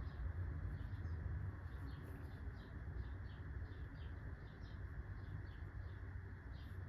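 Faint steady low rumble with many faint, short, high chirps scattered through it.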